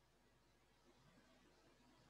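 Near silence: faint steady background hiss in a pause between recited lines.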